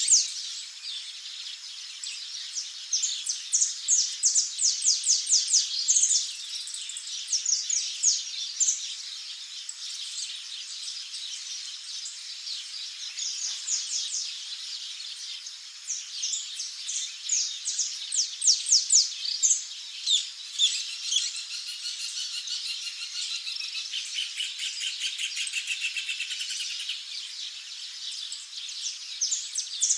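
Several small wild birds chirping and trilling, runs of quick high notes overlapping one another, loudest in clusters with quieter spells between.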